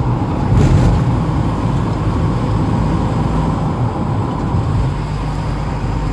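Engine and tyre noise inside a moving vehicle's cabin: a steady low drone, with a brief louder rush a little under a second in.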